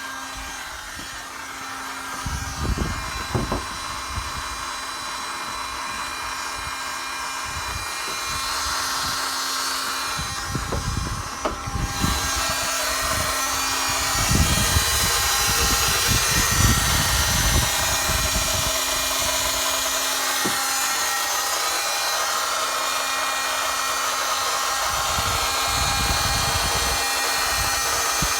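Honda Elysion's electric starter motor spinning on continuously without stopping, a steady motor whine that gets louder and brighter partway through, with irregular low thumps now and then. The starter is stuck running and will not disengage.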